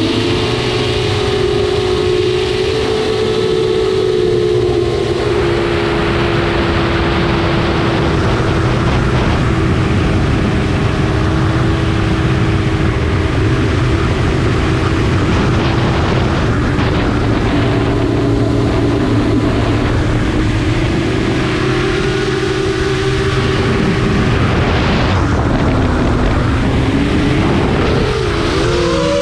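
FPV racing quadcopter's four brushless motors (Eachine 2507 1800kv) and propellers whining in flight, heard from the quad's onboard camera. The steady whine drifts in pitch with the throttle, and near the end it swoops down and up.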